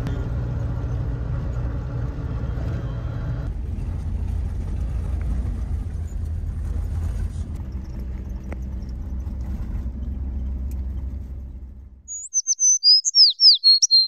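Steady low rumble of a UAZ-452 'Purgon' van driving, which cuts off abruptly about twelve seconds in. A bird then gives a quick run of loud, high chirps lasting about two seconds.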